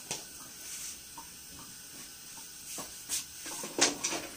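A few light clicks and knocks of kitchen handling over a faint steady hiss, the loudest knock coming a little before the end.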